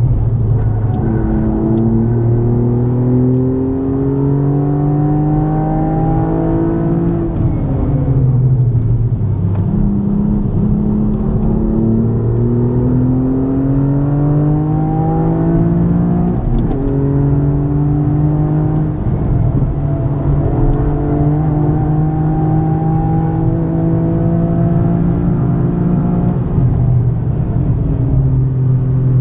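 Toyota GR Yaris's 1.6-litre turbocharged three-cylinder engine, with an aftermarket Aulitzky exhaust, heard from inside the cabin under hard acceleration. Its pitch climbs, falls away for about two seconds around a quarter of the way in, and climbs again. It drops sharply at an upshift a little past halfway, then holds a long, slowly rising pull.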